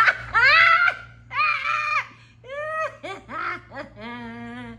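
A woman laughing hard in a run of high, shrieking peals.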